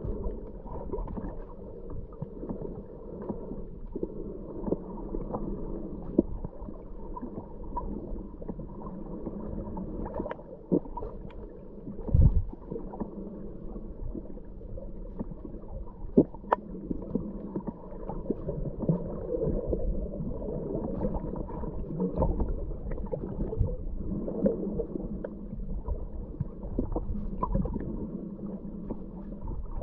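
Muffled underwater noise picked up through a camera's waterproof housing: a steady low rumble and gurgle with scattered clicks and knocks, the loudest a knock about twelve seconds in.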